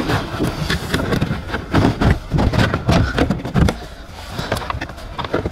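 Irregular plastic clicks, knocks and rattles as boot trim pieces and clips are worked loose with a plastic trim tool.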